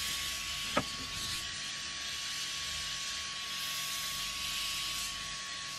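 Small gas blowtorch hissing steadily as its flame heats a copper pipe joint for tin soldering, with a thin constant tone under the hiss and one short click just under a second in.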